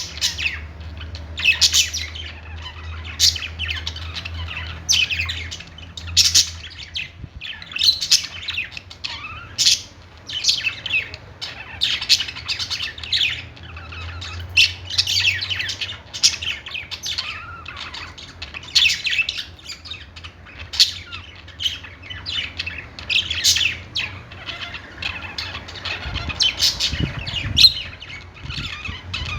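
A group of budgerigars chirping and squawking, with sharp high calls coming about once a second over a steady low hum.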